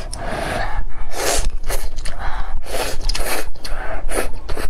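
Rice noodles and broth being slurped, a string of short noisy slurps about half a second to a second apart.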